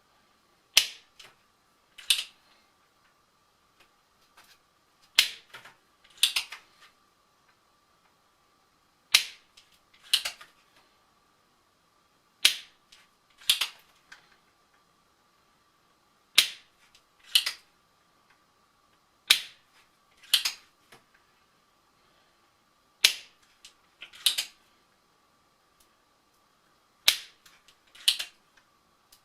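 Spring-loaded hand solder sucker being cocked and fired over and over while desoldering a fader's pins: sharp snaps in pairs about a second apart, eight pairs, every three to four seconds. A faint steady high whine runs underneath.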